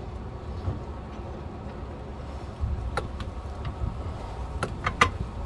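Small metal hardware being handled and fitted by hand: a few sharp clicks in the second half as a bolt and nylon washer are worked into place between the rail bracket parts, over a steady low rumble.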